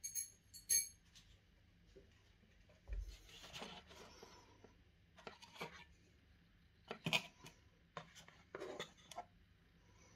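Cardboard packaging being handled: the box's inner tray scrapes and rubs, with a scatter of short sharp knocks and taps as parts are lifted out.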